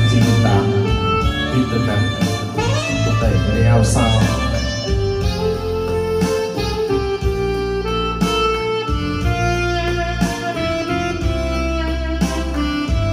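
Instrumental music: a melody line with vibrato over guitar and a steady bass.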